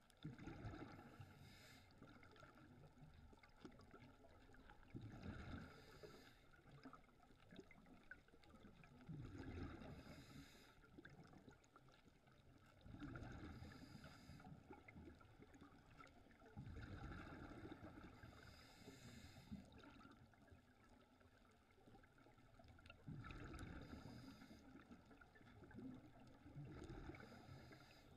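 Scuba diver breathing through a regulator underwater: a hiss on each breath and a rumble of exhaled bubbles, repeating about every four seconds.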